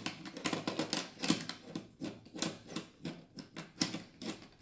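Marbles clicking and rattling down a small wooden marble run with plastic spiral tracks, in quick irregular taps.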